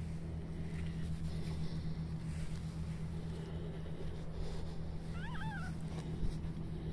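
A domestic cat gives one short meow about five seconds in, its pitch rising and falling, over a steady low hum.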